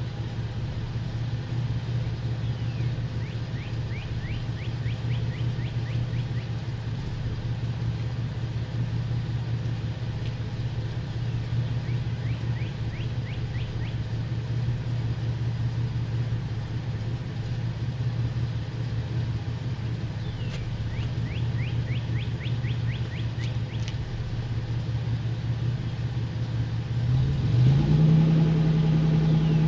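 SUV engine idling steadily, heard from behind at the exhaust, then revved up near the end and held at a higher, louder speed. The engine is being run with Seafoam fuel-system cleaner in it.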